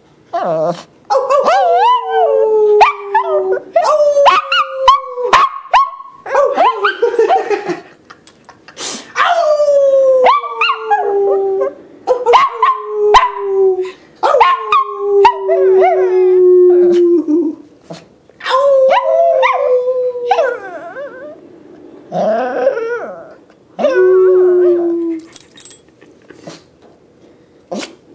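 Yorkie–Shih Tzu mix dog howling in a series of about eight long calls, each sliding down in pitch, broken by yips: an untrained, imperfect howl from a dog that doesn't yet know how to howl properly.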